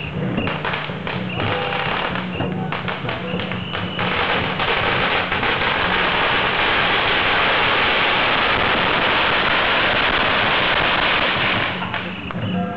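Strings of firecrackers going off in one long, dense crackle, from about four seconds in until near the end. Before and after it, the boats' drums and gongs beat among scattered pops.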